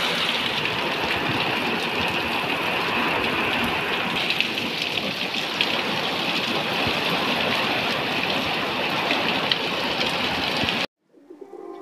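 Heavy rain pouring steadily onto a muddy lane: a dense, even hiss with scattered sharper drop hits. It cuts off suddenly near the end, and soft ambient music fades in.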